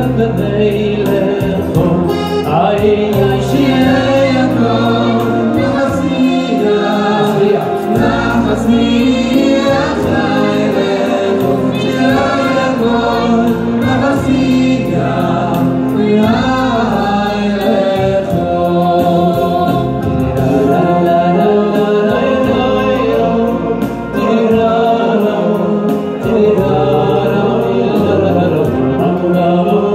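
Male vocal choir with a lead singer singing in harmony into microphones, backed by an electronic keyboard, heard through a loudspeaker system.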